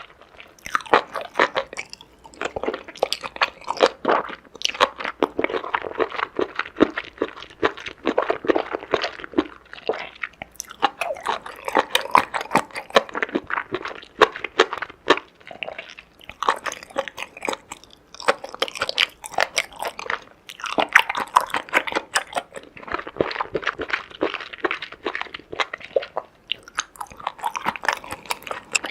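Close-miked chewing and crunching of seafood, wet crackly bites and mastication in irregular bursts.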